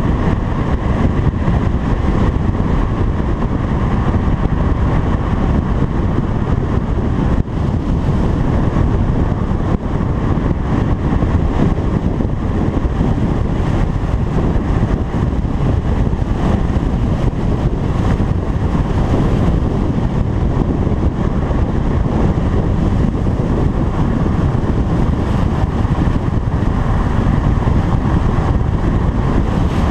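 A car driving at steady speed: a continuous deep rumble of road and engine noise with wind rushing over a camera mounted on the car's hood.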